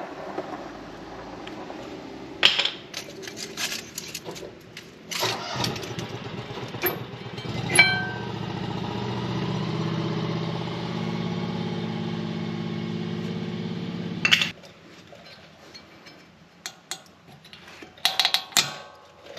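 Metal knocks and ringing clinks of brake hardware being handled, then a steady motor hum for about six seconds that stops abruptly with a clank; more light clicks follow near the end.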